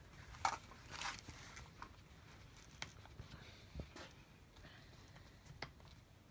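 Faint handling noise at a workbench: a couple of short rustles of the canvas belt near the start, then scattered light clicks and taps from the plastic belt fittings, with one soft thump past the middle.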